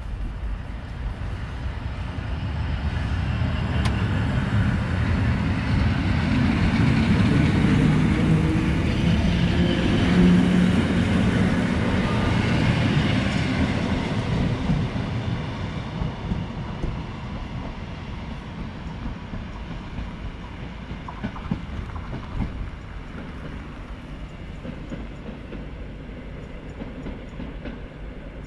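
EN57 electric multiple unit passing along the platform, its wheels clattering over the rail joints. It grows louder to a peak about ten seconds in, then fades as the train moves away.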